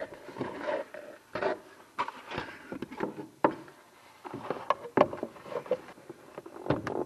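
Hard plastic foosball ball-return track being handled and pushed into place against the table's wooden underside: irregular clattering knocks and scraping rustles.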